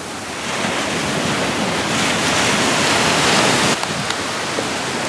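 Ocean surf washing up the beach. The rushing wave noise swells to a peak and cuts off suddenly about three-quarters of the way through.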